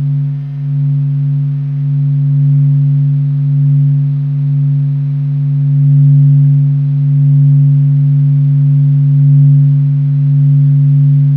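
NASA's sonification of the Sun's atmospheric motions: a steady low hum with a few fainter higher tones above it, gently swelling and easing in loudness.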